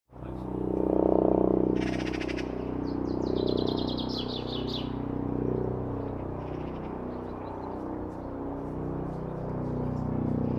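Eurocopter AS365 Dauphin twin-engine helicopter passing over, a steady low hum from its turbines and rotor that swells and eases. Small birds chirp over it, with a quick trill about two seconds in and a run of chirps a couple of seconds later.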